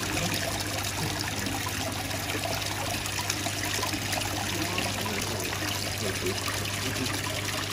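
Water trickling steadily over a low, even hum.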